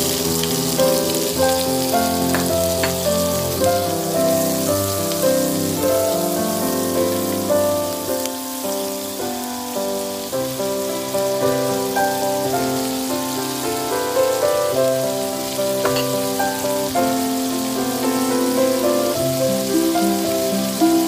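Peeled shrimp and chopped garlic sizzling in hot oil in a wok, with a steady hiss, under instrumental background music.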